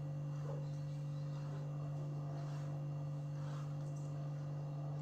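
Steady low electrical hum at an even pitch, with faint room noise.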